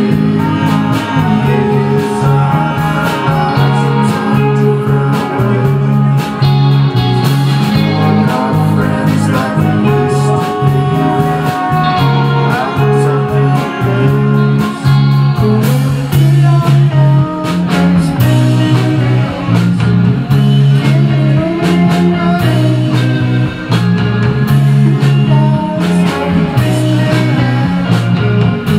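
Live indie rock band playing with electric guitars, saxophone and keyboard over a steady beat.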